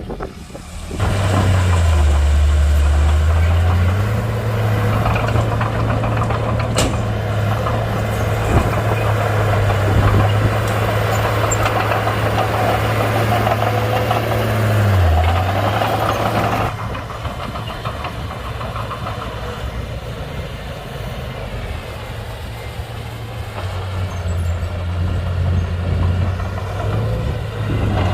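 Komatsu D31-P bulldozer's diesel engine working hard while pushing dirt. It comes up loud about a second in and sags in pitch briefly twice under load, then runs quieter after about 17 seconds.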